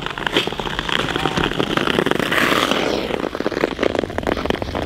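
Ice skate blades scraping and crackling over rough outdoor lake ice as skaters stride, with a louder rushing stretch about two to three seconds in.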